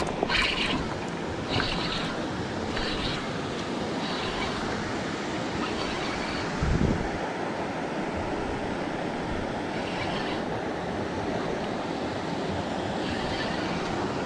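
Steady rush of a river running over rocky rapids, with wind blowing on the microphone and a brief low thump about seven seconds in.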